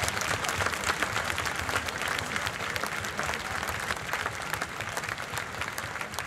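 Large audience applauding, a dense clatter of many hands clapping that gradually dies down.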